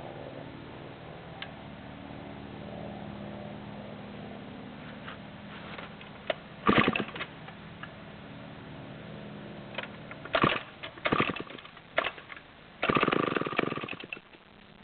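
Vintage Sears U4G chainsaw being pull-started from cold: several separate short, loud bursts as the starter cord is pulled, and near the end a longer burst of over a second that fades out as the engine fires briefly without keeping running.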